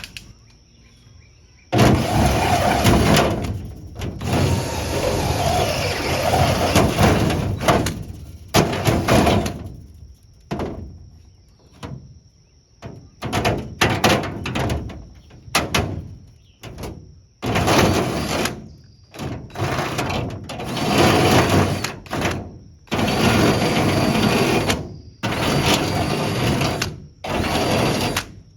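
Power drill drilling holes through a race car's decking panel, running in a series of separate bursts of one to three seconds, stopping and starting between holes.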